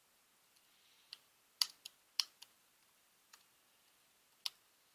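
Typing on a computer keyboard: about eight separate key clicks at uneven intervals, most of them bunched in the first half, with quiet between them.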